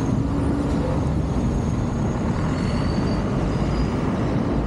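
Busy street traffic: vehicle engines running past as a steady low rumble, with a faint engine hum near the start.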